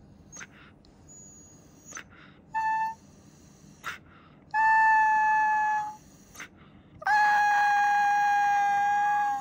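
Siberian husky crying in long, steady, high-pitched howls: a short one about two and a half seconds in, then two held notes of one to two seconds each, with soft clicks between.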